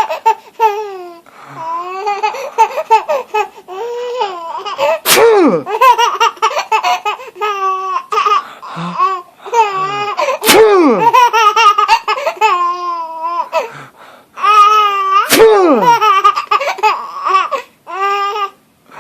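A baby laughing in repeated high-pitched fits. Three sharp sneezes come about five seconds apart, and each is followed by a fresh burst of laughter.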